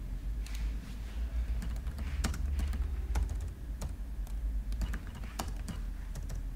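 Typing on a computer keyboard: a run of irregular key clicks as a word is typed out over and over, over a low steady hum.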